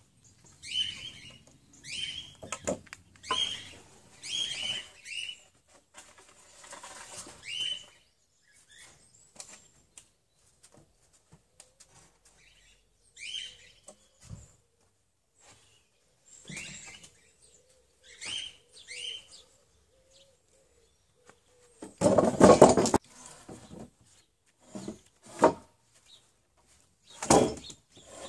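Small birds chirping, a run of short chirps that drop in pitch, then a loud clatter about a second long some two-thirds of the way through and a few sharp knocks near the end, from wooden beams being handled and laid down.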